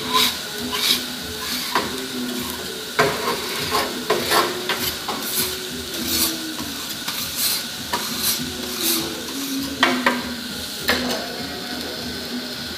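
Metal spatulas clacking and scraping on a steel teppanyaki griddle in quick, irregular strikes over the steady sizzle of food frying on the hot plate.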